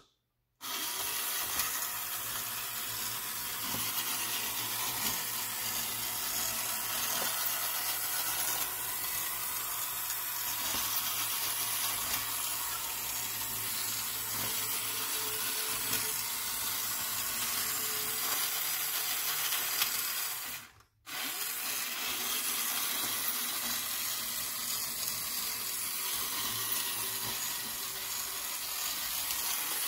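A battery-operated 1950s Line-Mar tin toy television truck running, its small electric motor and gears giving a steady whir over a low hum as they drive the wheels and the rotating cameramen. The sound cuts out for a moment about two-thirds of the way through, then carries on.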